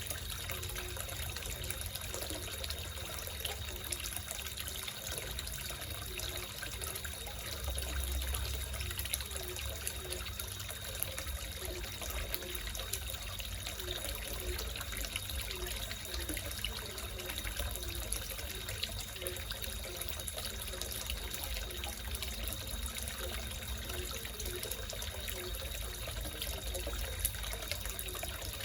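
Water trickling and splashing steadily into a small koi pond, with frogs croaking in a low, evenly repeating rhythm.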